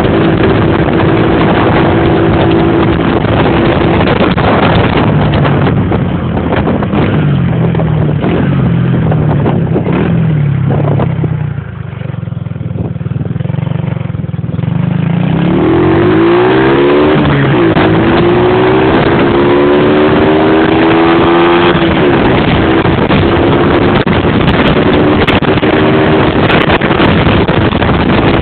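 Modenas Kriss 115 moped's small single-cylinder four-stroke engine running at riding speed, with wind rushing over the microphone. About eleven seconds in the engine eases off and the sound drops for a few seconds, then it revs up again, rising in pitch, and settles back to a steady high note.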